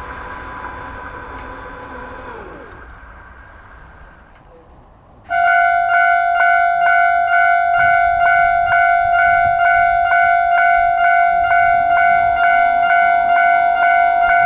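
A passing train fades away, then a loud electronic warning bell starts suddenly about five seconds in, ringing steadily and pulsing about twice a second.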